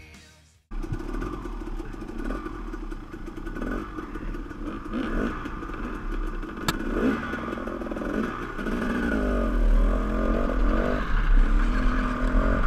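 Dirt bike engine running as the rider moves off along a rough trail, starting about a second in. The revs rise and fall several times in the second half.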